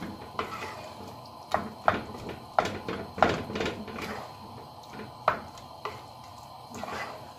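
Wooden spatula stirring a wet vegetable curry in an aluminium pressure cooker, knocking against the pot's sides about nine times at an irregular pace, with wet stirring sounds between the knocks.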